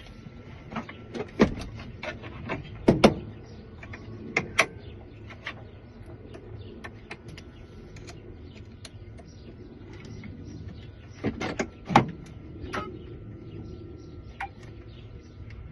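Scattered clicks and clunks of a key blank and tools being handled and clamped into a key-cutting machine, with a faint steady tone underneath. The loudest knocks come about a second and a half, three, four and a half and twelve seconds in.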